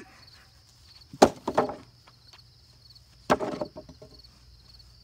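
Two heavy blows smash into a weathered wooden picnic table about two seconds apart, each a sharp crack followed by the boards clattering. Crickets chirp faintly and steadily in the background.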